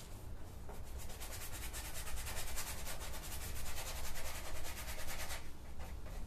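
Paintbrush scrubbing paint onto a stretched canvas in rapid, even back-and-forth strokes, a dry scratchy rubbing that starts about a second and a half in and stops a second before the end.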